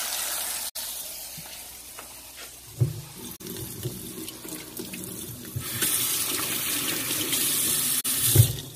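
Kitchen tap running into the sink, the flow heaviest over the last few seconds. A knock comes about three seconds in, and a louder thump just before the end.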